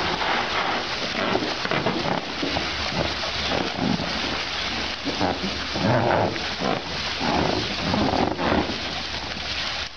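Steady spray and splashing of water in an inflatable paddling pool, with baby elephants rolling in it and a hose spraying in. Short voice-like calls come in a cluster in the second half.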